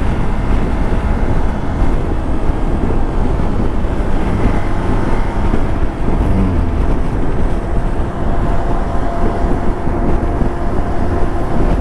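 Hero Xpulse 200 single-cylinder motorcycle engine running steadily while the bike is ridden at road speed, under heavy wind rush on the rider's microphone.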